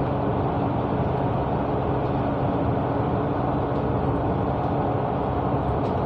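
Steady engine and road noise inside the cabin of a moving double-decker bus, a dense low rumble with a faint steady hum.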